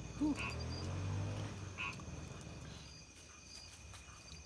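Night chorus of frogs, with a few short calls about a second and a half apart, over a steady high drone of crickets and insects.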